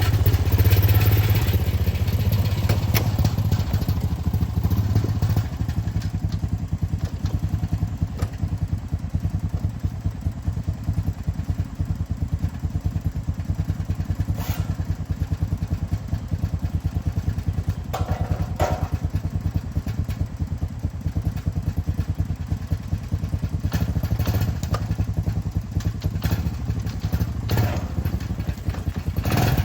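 Small gasoline engine of a Chinese mini excavator running steadily under work, its level dropping a little about five seconds in, with a few knocks and clanks from the machine as it digs.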